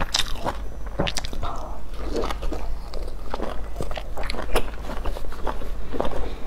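Close-miked eating sounds: a person biting into and chewing soft food dipped in chili sauce, with many short wet clicks and smacks of the lips and mouth.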